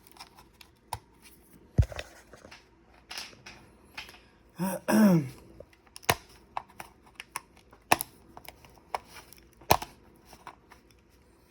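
Irregular clicks, taps and knocks of plastic laptop parts and connectors being handled and pried apart, with a short vocal sound about five seconds in.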